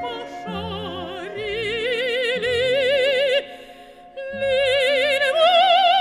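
Operatic singing: one voice holding long notes with a wide vibrato over a steady instrumental accompaniment. The voice breaks off about three and a half seconds in and comes back about a second later on a rising note.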